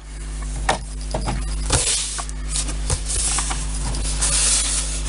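Hands rubbing and smoothing clear plastic film laid over a paper plan on a wooden building board. It makes a dry swishing rustle in a few strokes, with light taps and clicks between them.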